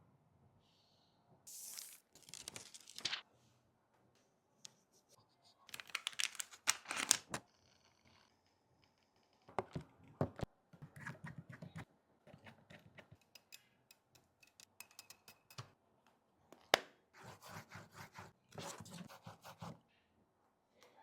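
Repair handling noise: short bursts of tearing and crinkling, as of film or tape being peeled and handled, with scattered small clicks and one sharp click, the loudest sound, late on.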